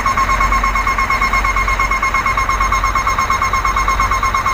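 An in-cab warning buzzer beeps rapidly and evenly, about seven beeps a second, while the dump body is raised with the PTO engaged. Underneath, the Scania P420 truck's diesel engine idles steadily.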